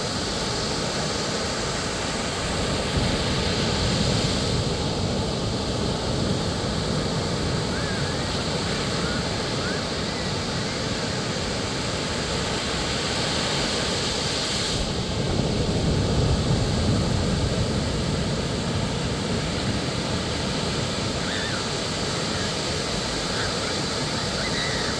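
Ocean surf washing steadily onto a beach, with a wave building and breaking louder a few seconds in and another about two-thirds of the way through.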